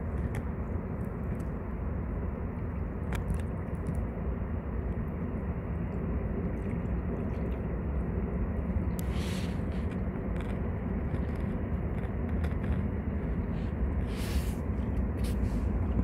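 Steady low rumble of outdoor riverside ambience, with a few faint clicks and two brief hissing sounds, one about nine seconds in and one near the end.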